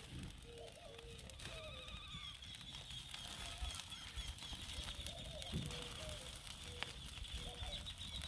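Birds cooing in short repeated low notes, with a higher bird warbling from about a second and a half in. A few faint knocks come as foil-wrapped potatoes are shifted on the grill grate.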